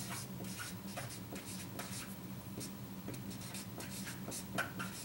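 Marker writing on a paper chart: a run of short, scratchy strokes as letters are formed, over a low steady hum.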